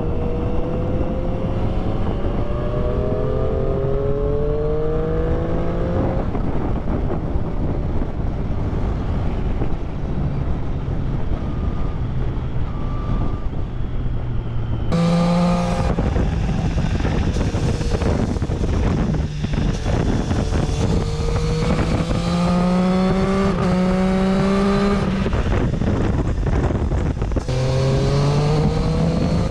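Triumph Street Triple's three-cylinder engine accelerating on the road, its pitch climbing and then dropping several times as it shifts up through the gears, over steady wind rush on the microphone.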